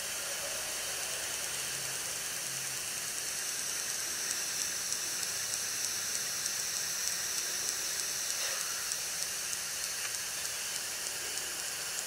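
An iPod Touch 4th generation playing back its own video recording through its small speaker: a steady hiss with faint, regular ticking running through it. The ticking is interference picked up during recording and is caused by the device's Wi-Fi.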